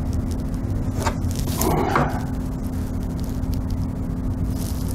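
Steady low electrical hum, with a brief rustle and a couple of light knocks about one to two seconds in as someone moves and handles tools at the bench.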